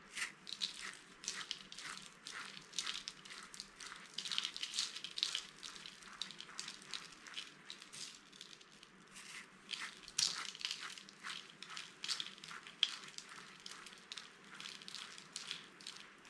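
Dry, watercolour-painted soap being crushed, a dense irregular run of crisp crunches and crackles that starts suddenly.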